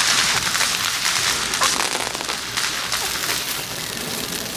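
Fireworks burning: a dense crackle of many small pops over a steady hiss, easing off a little towards the end.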